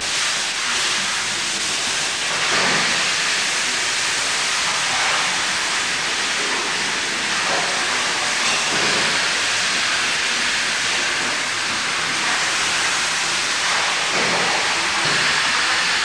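Hot water running from a hose into a cheese vat of curds and whey, a steady hiss that starts abruptly.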